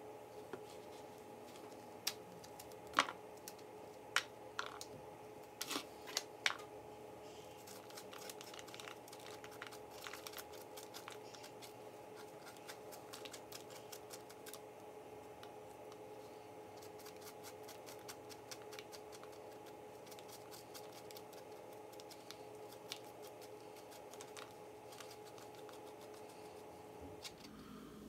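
A metal spoon scraping the gills out of portobello mushroom caps: a long run of quick, soft scratchy clicks, after a few sharper separate clicks in the first several seconds. A faint steady hum runs underneath.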